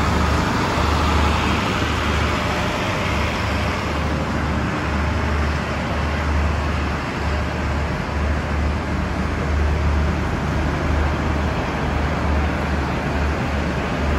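Steady mechanical running noise from a train standing at the platform, with wind buffeting the microphone in irregular low gusts.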